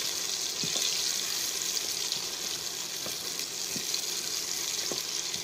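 Sliced onions sizzling in hot oil in a pressure cooker pot, a steady hiss, with a few light knocks of a wooden spatula stirring them against the pot.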